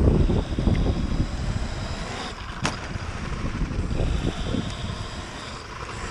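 Trampa electric mountainboard rolling over concrete, its pneumatic tyres rumbling under heavy wind buffeting on the camera microphone. A single sharp click comes about two and a half seconds in.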